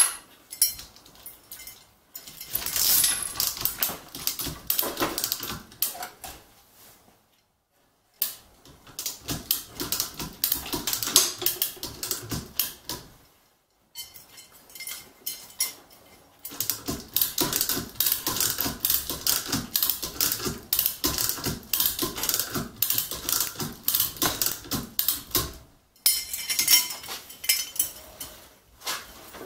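Manual chain hoist being hauled to lift an engine: the chain rattles and clicks rapidly through the hoist in several stretches, with short breaks between them.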